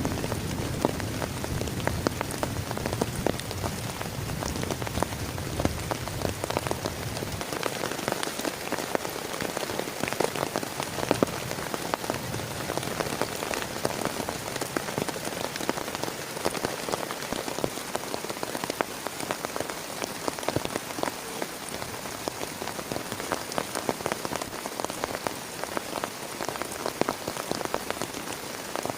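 Heavy rain pattering steadily on a plastic tarp, a dense hiss of countless drop hits. A low rumble underneath fades out about seven seconds in.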